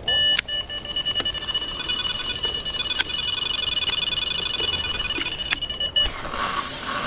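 Electronic carp bite alarm sounding as a fish takes line on a run: a rapid, continuous high-pitched beeping that cuts off suddenly about six seconds in.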